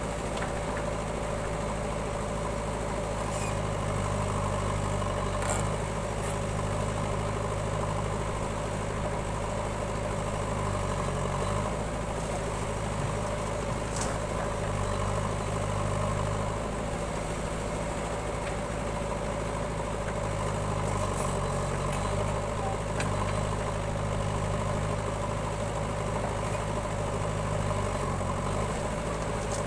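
Diesel engines of a JCB backhoe loader and a farm tractor running steadily at low speed as the backhoe digs and loads soil. The engine note dips briefly three times under load, about a third of the way in, about two thirds of the way and near the end.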